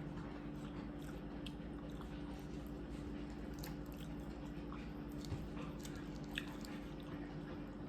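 Person chewing and biting into seafood, with scattered small clicks and one sharper click near the end, over a steady low hum.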